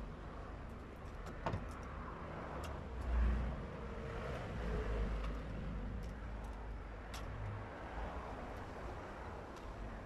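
A low rumble that swells twice, about three and five seconds in, with a few faint scattered clicks.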